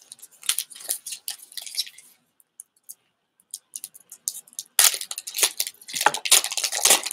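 Foil wrapper of a trading-card booster pack crinkling as it is handled, with scattered crackles, then a dense, louder crackling from about five seconds in as the wrapper is torn open and the cards pulled out.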